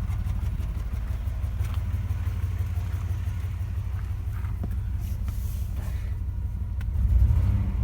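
2000 Chevrolet Blazer's 4.3-litre V6 idling with an audible miss, a little louder about seven seconds in. A new spark plug in cylinder 1 has not cured the misfire, which the owner thinks could be a bad plug wire.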